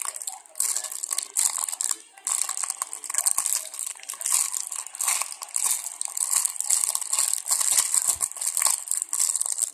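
Packaging crinkling and rustling in bursts as it is handled and squeezed, a dense crackle with short pauses between handlings.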